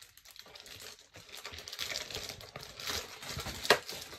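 Foil trading-card pack wrappers and cards being handled, crinkling and rustling, with a sharp snap near the end.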